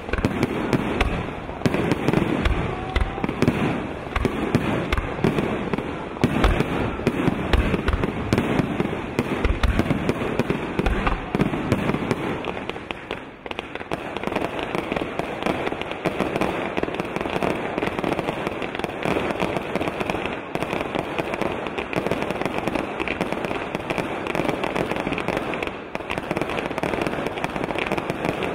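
Fireworks display: aerial shells bursting in quick succession, deep booms over dense crackle for roughly the first twelve seconds. After a short lull about thirteen seconds in, a steady thick crackling of gold crackle stars takes over, with fewer booms.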